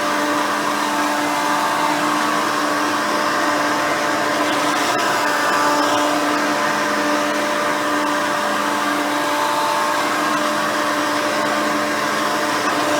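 Hoover Elite 350 upright vacuum cleaner running steadily, its 5-amp motor and seven-blade fan giving a constant whine with a low hum underneath, as it is worked over carpet with a soft nylon brush roll.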